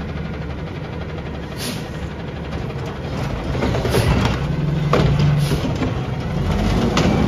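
Garbage truck's diesel engine running while its automated side-loader arm lowers an emptied cart back to the curb, the engine rising briefly about five seconds in. A few knocks and clanks from the arm and cart, a loud one near the end as the cart is set down.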